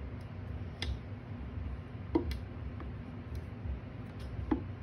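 A few scattered light clicks and taps of hands handling a teacup planter among moss inside a glass terrarium, the sharpest about two seconds in and another near the end, over a low steady background.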